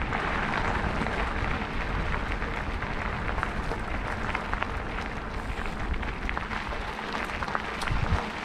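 Mountain bike rolling over a rough dirt and gravel trail: a steady crackle of tyres on loose ground, dotted with small clicks and rattles from the bike.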